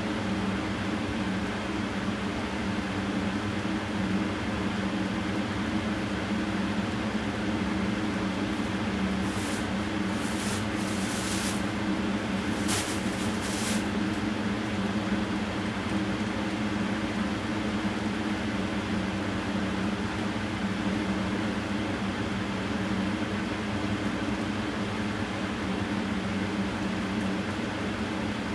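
Steady mechanical hum with an even background hiss, with a few brief hissing bursts about a third of the way in.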